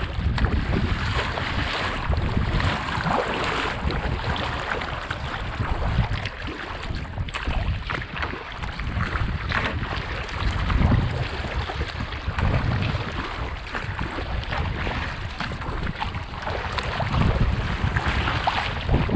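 Wind buffeting the microphone over waves splashing around a kayak under sail in choppy water.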